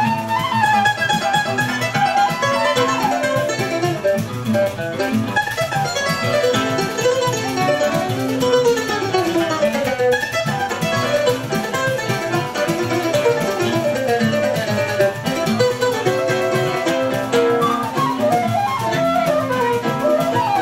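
Live choro instrumental on plucked strings: a bandolim plays fast melodic runs up and down over acoustic guitar accompaniment.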